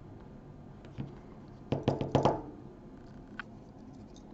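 Hard objects knocking as a folding knife and small screwdriver are handled on a work mat: a light knock about a second in, then a quick cluster of four sharp knocks.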